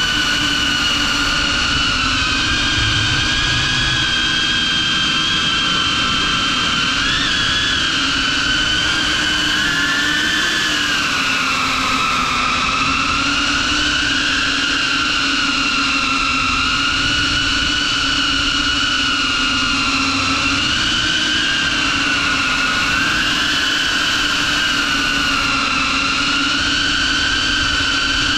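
FPV quadcopter's brushless motors and propellers whining, running on a 6S battery, heard from its onboard camera. The pitch rises and falls gently and constantly with throttle.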